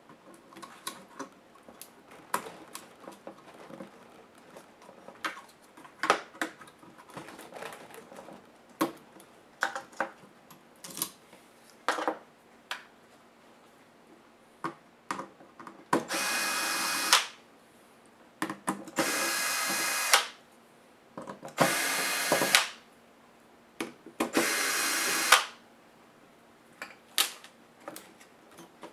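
Light clicks and taps of hands handling a laptop's plastic case and parts, then a cordless electric screwdriver running in four short bursts of about a second each, backing screws out of the laptop's chassis.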